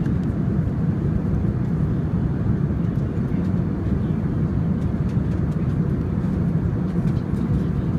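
Steady low rumble of a moving vehicle, heard from inside the cabin, with a few faint clicks.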